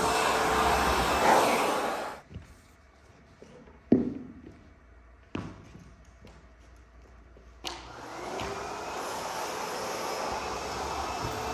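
ProTeam MegaVac vacuum running, then shut off about two seconds in. A few knocks and thumps sound in the quiet, the sharpest about four seconds in. Near eight seconds in the motor comes back on and winds up to speed with a rising whine.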